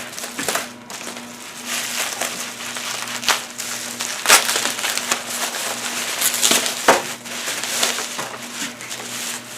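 Packaging being unwrapped by hand: continuous crinkling and rustling with irregular crackles, and a few sharper snaps, the loudest about four and seven seconds in.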